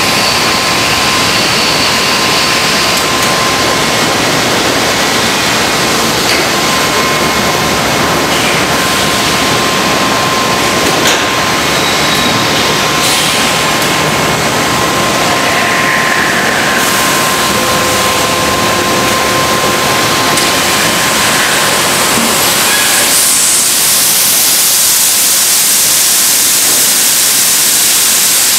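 Thermoforming machine line running: a loud, steady machine hiss with a faint held whine, the hiss growing brighter about three-quarters of the way through.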